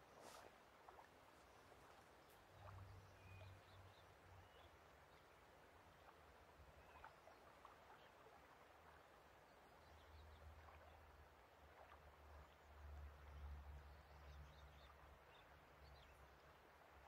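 Faint lake ambience: a soft outdoor wash with scattered distant bird chirps, and a low rumble that swells about three seconds in and again from about ten seconds in.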